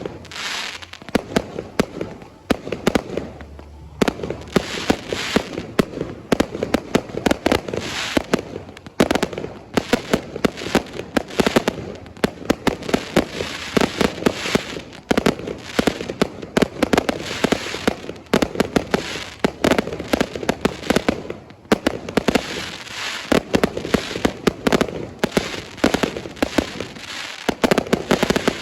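Fireworks display: a dense, near-continuous barrage of bangs and crackling pops, easing off briefly a few seconds in and again past the middle.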